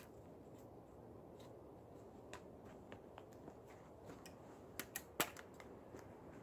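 Scattered light snaps and crunches of twigs and snow underfoot as a man steps about and handles branches at a snow-covered pole shelter, with three sharper cracks close together about five seconds in, the last the loudest.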